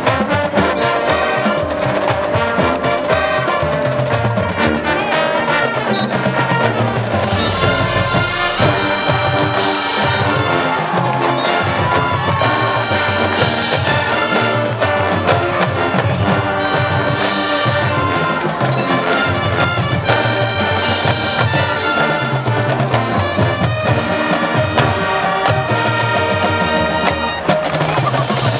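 High school marching band playing a brass-led piece, horns carrying the tune over steady drum and percussion beats.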